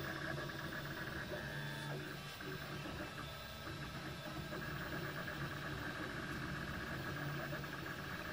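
MakerBot Replicator 2X 3D printer running a print: its stepper motors whir in held tones that shift in pitch as the extruder head and build platform move.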